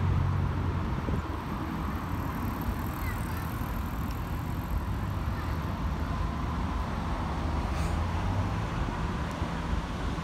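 Steady low engine rumble of road traffic, with cars passing on the street.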